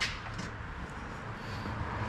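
A sharp click right at the start and a fainter one shortly after, over a low steady hum.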